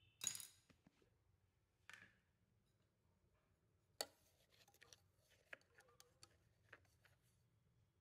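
A brief rustle and a sharp click, then a run of faint light clinks and scrapes of a spoon against a stainless-steel mixer-grinder jar holding coarsely ground spice powder.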